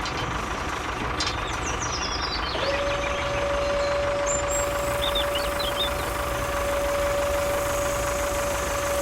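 Steady motor rumble with a constant high hum, joined about two and a half seconds in by a steady whine that holds to the end.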